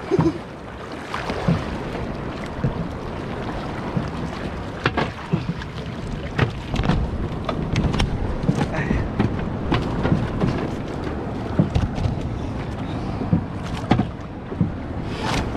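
Choppy sea splashing and slapping against a small wooden outrigger boat, with irregular knocks against the hull and wind buffeting the microphone.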